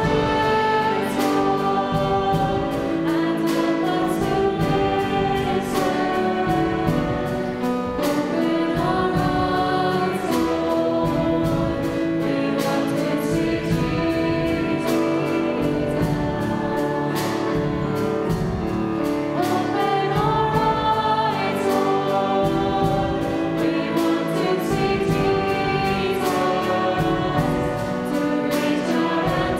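Worship song in a church service: a group of voices singing a melody over band accompaniment with a steady drum beat.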